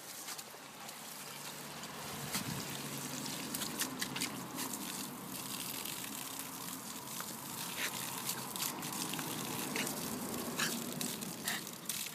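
Water from a garden hose spraying upward in a jet and splattering onto the grass, a steady hiss, with a few sharp clicks scattered through it.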